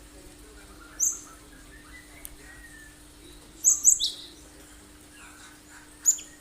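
Cinereous tit (gelatik batu) giving sharp, high, whistled call notes that drop quickly in pitch: one about a second in, a fast run of three near the middle, and another near the end.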